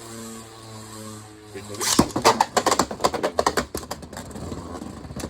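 A steady whirring hum, then about two seconds in a sharp clack as two spinning Beyblade tops are launched into the stadium. After that come rapid, irregular clicks and rattles as the tops spin and collide against each other and the plastic stadium walls.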